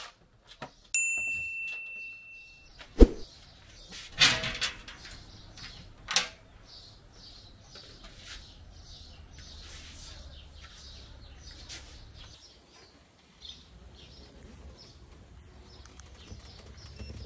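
A short electronic ding, then a sharp click and rattling clatter as the thin aluminium cover over the BMW i3s motor compartment is handled and lifted out. Faint scattered ticks of handling follow over a low steady hum.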